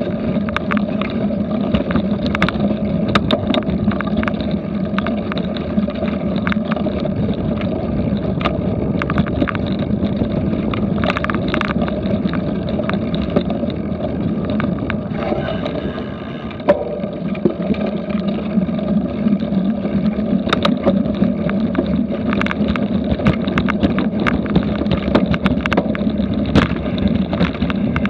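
Cyclocross bike rattling over bumpy grass at race speed, with frequent small knocks and clicks over a steady rush of wind on the action camera's microphone. It eases briefly about sixteen seconds in, then a sharp knock.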